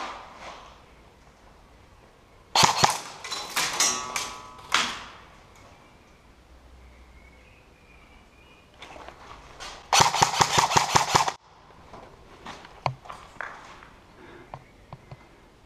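Airsoft guns firing: a ragged string of shots about three seconds in, then a rapid automatic burst of evenly spaced shots about ten seconds in, lasting under two seconds.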